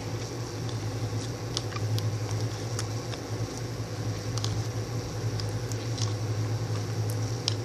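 Wet, still-watery glue slime being squished and worked, with scattered small sticky clicks and pops over a steady low hum.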